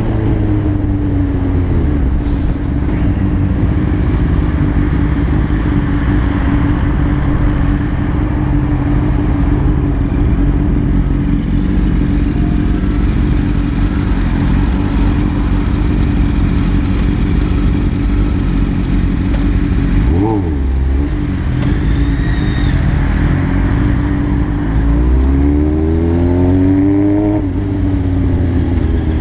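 Inline-four sportbike engine running at steady revs as it rides through town. About two-thirds through there is a quick rev blip, and near the end the engine revs up and falls back again.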